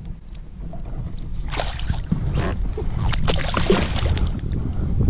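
Large rainbow trout thrashing and splashing at the surface against a kayak's hull while being grabbed by hand. The splashing starts about a second and a half in and goes on as a run of irregular slaps and sprays of water.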